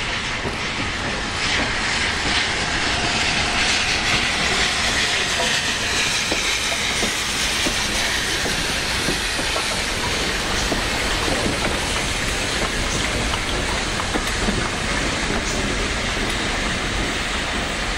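LMS Black Five steam locomotive 44871 passing at low speed, steam hissing from around its cylinders, with the hiss strongest through the first half as the engine draws level. Its coaches then roll past, wheels clacking over the rail joints.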